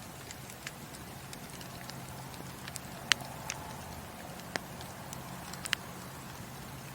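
Wood burning in a fireplace, crackling with scattered sharp pops, the loudest a little after three seconds in, over a steady low hum and soft hiss.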